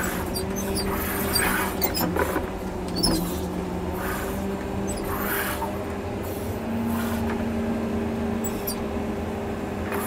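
John Deere 670G motor grader's diesel engine running steadily under load while grading, its pitch rising a little for a couple of seconds in the middle. Scattered short high squeaks and a few brief clunks sound over the engine.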